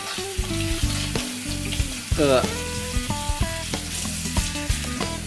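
Kitchen faucet running in a steady stream while hands and arms are rinsed under it, with background music playing over the water.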